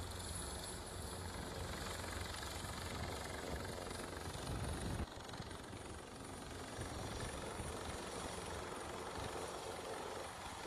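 Airbus H225 Super Puma helicopter hovering low and close, its rotor and turbines running steadily, with a short swell just before midway and a little quieter after.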